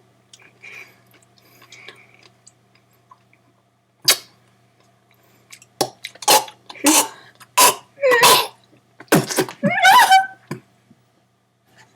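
A person making silly throaty vocal noises: a string of short cough- and grunt-like bursts starting about four seconds in, the last ones gliding up in pitch.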